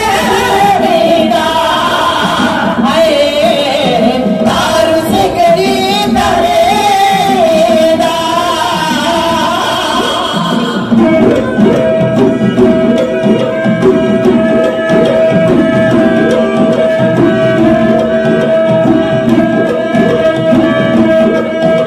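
Music: a voice sings a wavering melody over drums, then about halfway through the singing stops and a steady held note continues over quick hand-drum playing.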